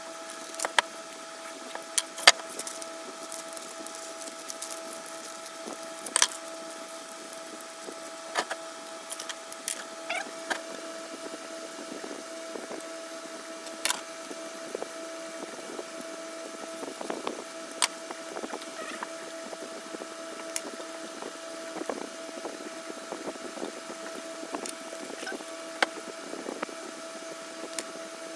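A steady hum with scattered sharp knocks and taps of a wooden block, a paper template and a marker being handled on a workbench; the loudest knock comes about two seconds in.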